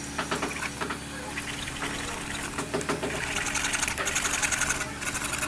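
A hacksaw blade cutting through a plastic CPVC pipe with back-and-forth strokes. The rasping grows stronger about halfway through.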